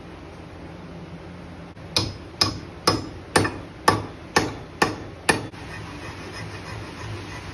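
A hammer strikes an axe head being fitted onto its wooden handle eight times, about two blows a second, each a sharp knock with a short ring. The blows seat the head on the handle.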